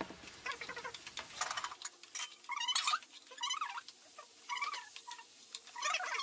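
Wooden spatula stirring chopped red radish, radish leaves and dal in a non-stick pan: scraping and tapping at first, then several runs of short squeaky chirps.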